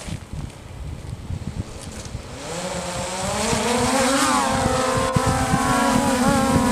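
Small quadcopter drone's propellers spinning up for takeoff: a buzzing whine that rises in pitch about two and a half seconds in, then holds steady as it hovers and flies off. Wind buffets the microphone throughout.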